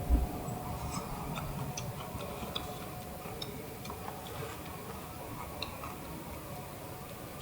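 Faint steady hiss with scattered small ticks and clicks, irregular rather than rhythmic, as buns warm in a pan over a camp stove. A brief low thump comes right at the start.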